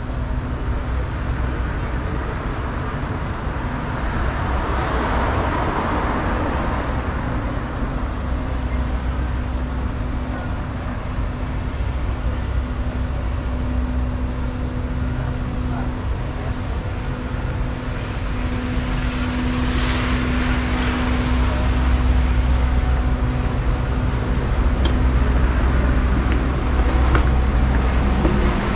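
Street traffic: a steady low engine hum with vehicles passing, two of them swelling louder about five seconds in and again around twenty seconds.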